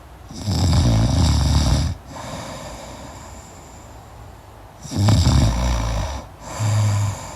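A person snoring in deep sleep with a crackling snore. A long snore starts about half a second in, followed by quieter breathing. Two shorter snores come close together from about five seconds in.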